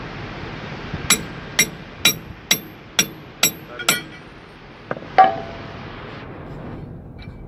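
Hand sledge hammer striking a steel socket wrench on a Komatsu D37EX dozer's sprocket bolt to break it loose. Seven ringing metal blows come about two a second, then after a short pause two more, the last the loudest.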